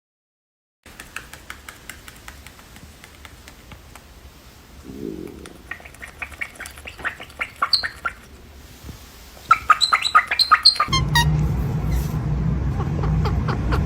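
Small parrots chirping and clicking in quick runs of short, high calls. Near the end a loud, low, steady rumble comes in under them.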